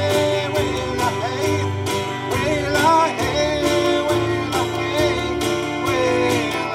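Live gospel band: a man singing lead while strumming an acoustic guitar, over bass and drums keeping a steady beat.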